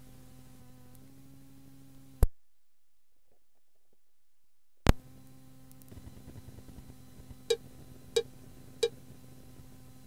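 Cassette tape hiss with a low hum between tracks, broken by a sharp click about two seconds in, dead silence for about two and a half seconds, then another click. Near the end come three short cue beats about two-thirds of a second apart: the countdown before each message that tells the listener when to start the answering machine recording.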